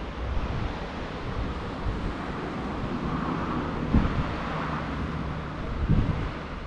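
Wind buffeting the microphone over a steady rush of sea, with two dull knocks about four and six seconds in.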